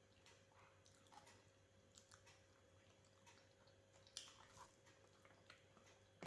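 Faint close-up chewing and small wet clicks of eating a rice meal, one click a little louder about four seconds in, over a low steady hum.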